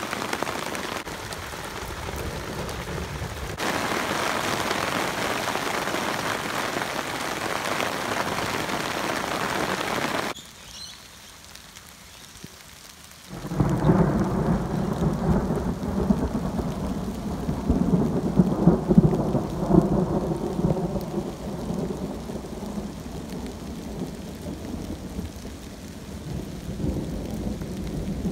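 Summer downpour: steady heavy rain hissing down. About ten seconds in it drops abruptly quieter for a few seconds, then comes back louder with a long low rumble that slowly eases off.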